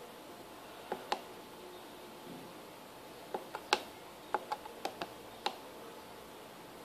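Push buttons on a Walkera Devo 7E radio transmitter clicking under a thumb, about ten short presses: two about a second in, then a quicker run of eight between about three and five and a half seconds in, as the travel values are stepped up and down.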